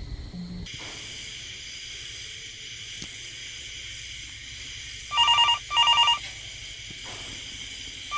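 A telephone ringing in the double-ring pattern: two short rings about five seconds in, with the next pair starting at the very end. A steady hiss runs underneath from about a second in.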